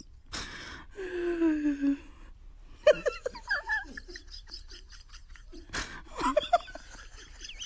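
A person laughing in gasping, wheezing bursts, with a single sharp knock about six seconds in.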